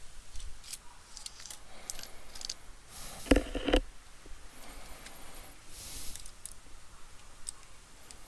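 Small clicks and rustling of tools being handled on a repair bench, with a louder double knock about three and a half seconds in.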